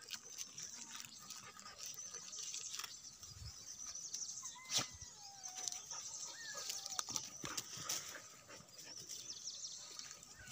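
Quiet outdoor ambience around dogs on grass: faint scattered rustles and small clicks, with a sharper click about five seconds in. Faint thin whistling calls come in the middle.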